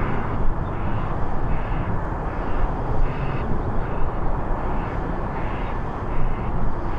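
Airbus A320-214's CFM56 jet engines at climb thrust after takeoff: a steady, broad rumble heard from behind the departing airliner. A short higher-pitched sound repeats through it, about once or twice a second.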